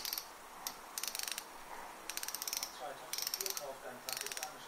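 A spinning reel's spool clicker ratcheting as the spool is turned by hand. The clicking comes in about six short bursts of rapid, fine clicks.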